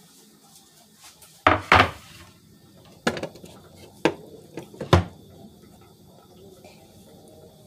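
Kitchenware being handled: pots and dishes clattering, with two knocks close together about a second and a half in, then single knocks about three, four and five seconds in.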